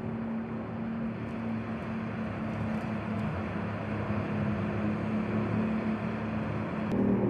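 Porsche Macan 4 electric SUV cruising at steady speed: tyre and road noise with a steady low hum, no engine note.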